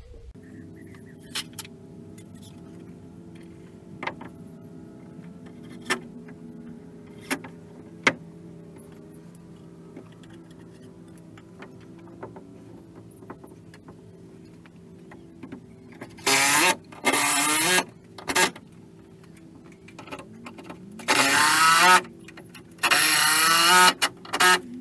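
Cordless drill-driver running screws into pre-drilled timber to fix gallow brackets to a porch post and beam: several whirring bursts of one to two seconds each in the second half. Earlier come a few sharp knocks as the wood is handled and set in place.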